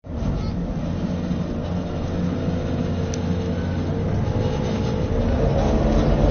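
A small passenger ferry's engine running steadily as the boat comes in to the pier, revving up and getting louder near the end.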